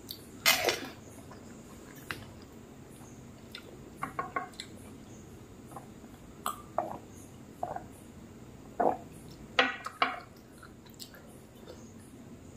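Close-miked eating sounds of rice and dal taken by hand: wet mouth smacks and chewing in scattered short bursts, loudest about half a second in and again around ten seconds in, with sips from a glass of water in the middle.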